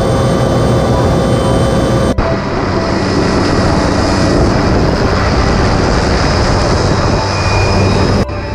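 Helicopter engine and rotor running on the ground, heard from inside the open cabin as a loud, steady whine over noise. The sound changes abruptly twice, about two seconds in and near the end.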